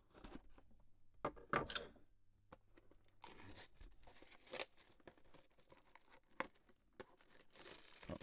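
A trading-card hobby box's packaging being torn open by hand: sharp tearing crackles, then a steady crinkling rustle with a few louder rips.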